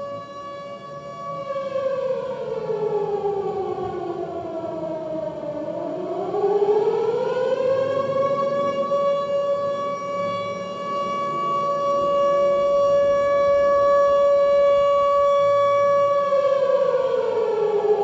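Civil-defence siren sounding one steady wailing tone. It slides down in pitch over a few seconds, climbs back up and holds level for about eight seconds, then starts to fall again near the end.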